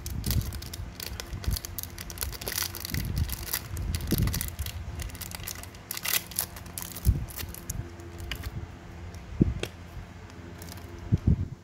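Polished-chrome Zippo lighter being handled: an irregular run of small metallic clicks and scrapes, with a few louder knocks about 7, 9 and 11 seconds in.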